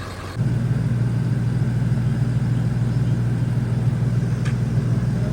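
An engine running steadily at idle, a constant low hum that cuts in abruptly less than half a second in.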